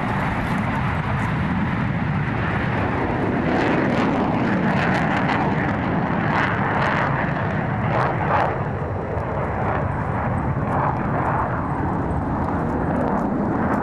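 Jet engine noise from a pair of JASDF F-15 Eagle twin-engine fighters flying past in formation: a steady rushing roar that swells a little about halfway through.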